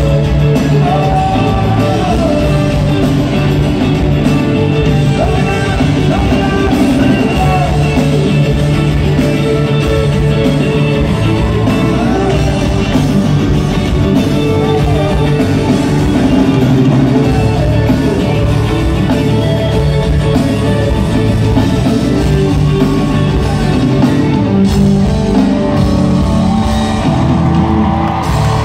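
Live rock band playing a ballad with singing, electric guitars and drums, heard over the arena's sound system from among the audience.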